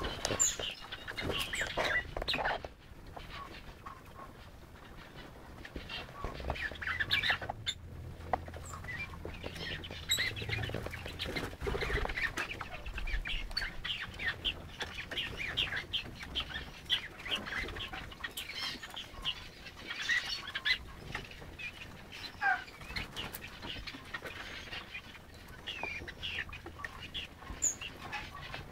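Crested partridges (roulrouls) foraging, scratching and pecking in sand and bark chips, with many short, scattered chirping calls.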